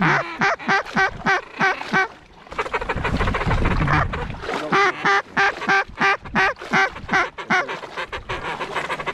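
Duck call blown in rapid runs of quacks, about five a second, to bring in passing ducks. The calling pauses for a couple of seconds, while wind buffets the microphone, and then starts again.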